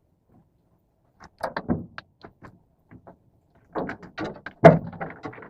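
Two flurries of knocks and thumps: a short run about a second in, then a denser run from about four seconds in, with its loudest thump near the end.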